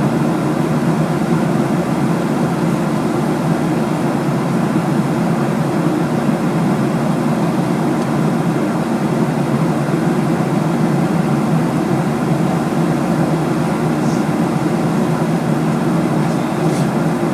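Steady low roar inside a passenger airliner's cabin in cruise flight: jet engine and airflow noise.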